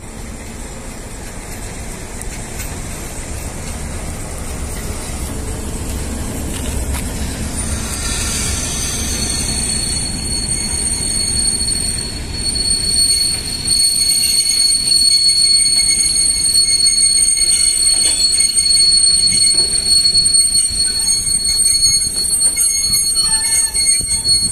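Freight train with two class 742 diesel locomotives approaching and passing, engines rumbling low and growing louder. From about eight seconds in, steady high-pitched steel wheel squeal rings out over the rumble as the train and its wagons roll by.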